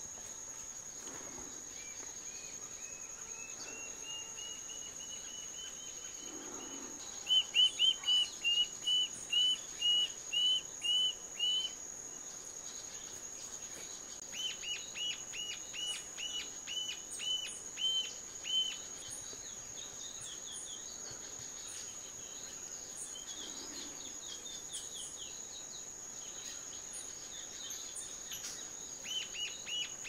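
Rufous-tailed jacamar singing: several bouts of short, high, thin notes repeated about twice a second, the loudest bout in the first half. A steady high insect drone runs underneath.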